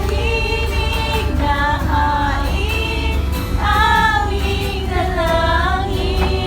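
Worship song playing: a woman's singing voice over backing music with a steady low beat.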